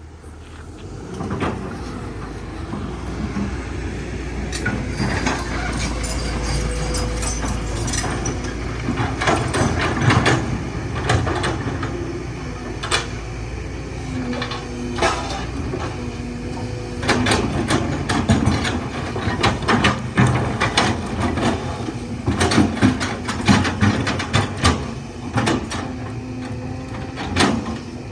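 Kobelco excavator's diesel engine running steadily, with frequent sharp metallic clanks and knocks that come thicker in the second half.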